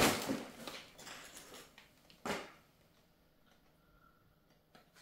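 Rustling and handling noise from groceries being put away: a noisy rustle at the start that fades over most of a second, then one short knock about two seconds in, followed by near silence.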